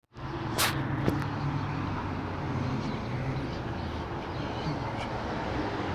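Steady low engine hum over outdoor background noise, with two short sharp clicks about half a second and a second in.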